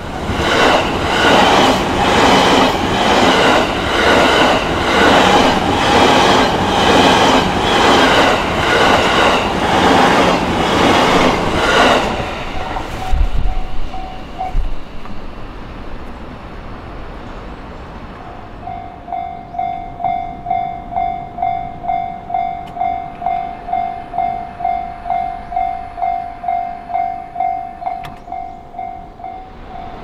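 A JR Chuo Main Line electric train passes over the level crossing for about twelve seconds, its wheels clattering over the rail joints in an even rhythm, then it is gone. The crossing's warning bell rings briefly after it, stops, and some seconds later starts ringing again with steady strikes about twice a second.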